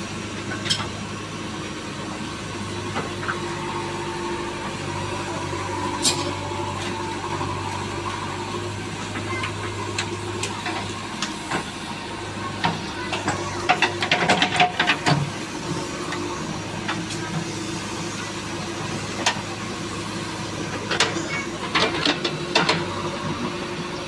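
A JCB 3DX backhoe loader's diesel engine runs steadily while the backhoe digs. Scattered clanks and scrapes of the bucket against soil and stones come through, most densely around the middle and again near the end.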